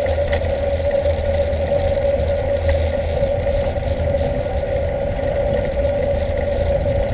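Mountain bike rolling along an asphalt lane: the knobby tyres give a steady hum, with low wind rumble on the microphone.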